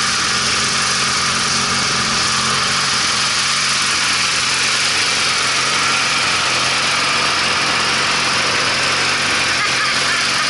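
Riding lawn mower's small engine running steadily with an even drone and a strong high hiss.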